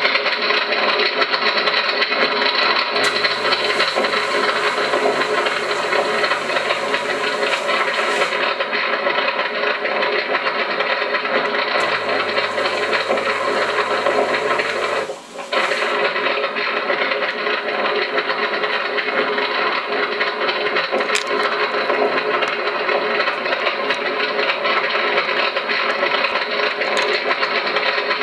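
Recorded fire crackle played by a fire-training simulator's loudspeaker. The sound is a steady, dense crackling noise. Twice, at about 3 seconds and again at about 12 seconds, a higher hiss with a low hum joins it for a few seconds.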